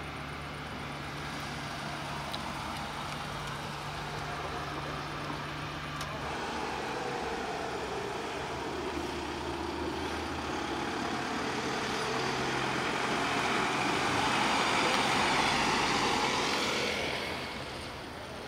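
A road vehicle drives past, its engine and tyre noise growing steadily louder to a peak near the end and then falling away quickly. A low, steady engine hum sits underneath during the first few seconds.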